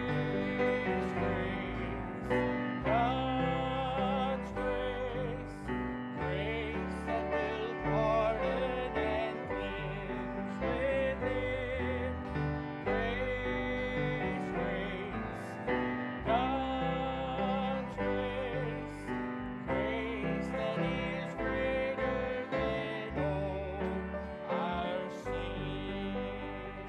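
Church music: a voice singing with vibrato over piano accompaniment.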